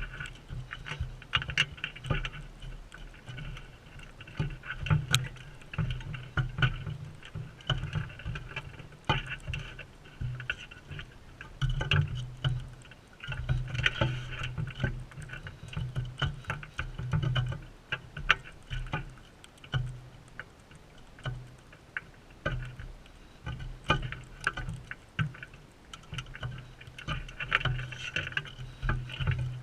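Crimson rosellas feeding close to the camera: irregular cracks and taps of beaks on seed and on the feeder, over a steady low rumble.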